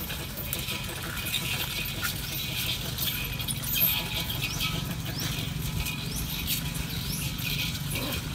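Outdoor ambience with many short, high, rising chirps repeating irregularly over a steady hiss and a low hum.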